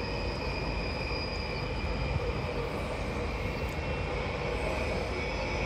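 Stadler FLIRT multiple unit moving past along a station platform: a steady rumble of the train with a thin, steady high tone over it.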